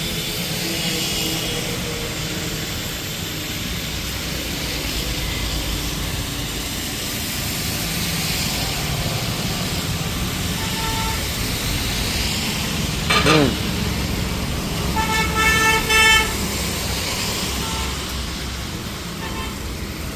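Steady street traffic noise, with vehicle horns honking: a sweeping tone about two-thirds of the way in, then a horn sounding in several short blasts.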